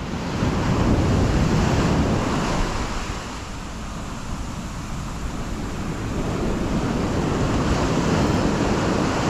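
Ocean surf breaking and washing up the sand around the microphone, with wind buffeting it. The rush swells over the first couple of seconds, eases in the middle and builds again near the end.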